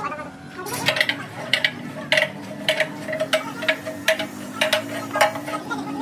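Repeated metal-on-metal strikes, about two a second and somewhat irregular, each with a short ring of the same pitch, over a steady low hum.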